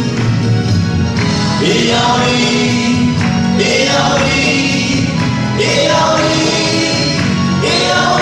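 A group of men singing a song together into microphones, amplified over a PA, in phrases that start about every two seconds.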